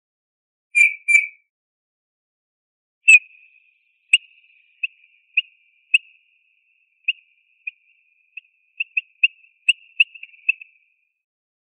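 Eurasian bullfinch calling with soft piping notes: two about a second in, a louder one about three seconds in, then a run of short notes that quickens toward the end.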